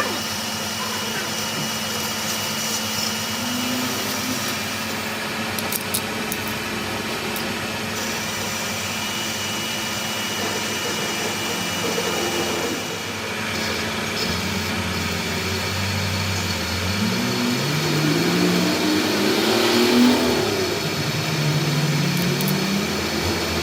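A workshop machine motor running steadily with a hum and a whine. In the second half, pitched tones step up and down over it.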